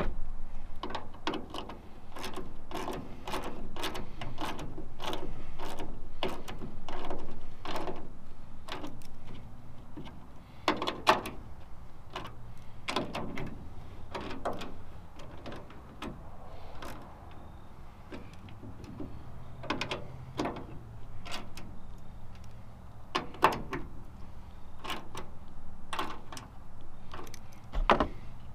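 Hand ratchet clicking in irregular runs of short clicks as the tail light's mounting screws are turned snug into plastic by hand.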